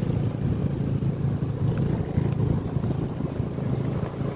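Motor scooter engine running steadily at riding speed, a low even hum, with wind rumbling on the microphone.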